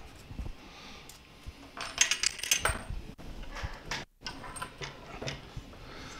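Metallic clinks and rattles as a hex key and the CR-10S printer's aluminium extrusion gantry frame are handled during assembly, a quick cluster of clinks about two seconds in being the loudest. The audio cuts out briefly about four seconds in.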